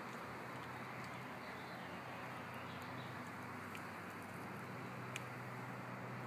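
Steady outdoor background noise with a constant low hum, and a few faint, short high ticks scattered through it, one a little louder near the end.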